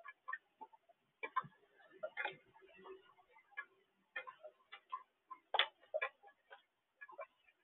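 Mourning dove pecking seed from a feeder tray right beside the microphone: irregular sharp taps and clicks of beak on seed and tray, a few a second.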